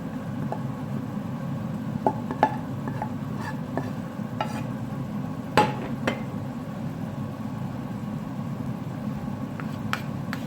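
Utensil scraping and knocking against a pan as cooked potatoes and onions are scooped out into a bowl. It is a scattered run of clicks and knocks, the loudest about halfway through, over a steady low hum.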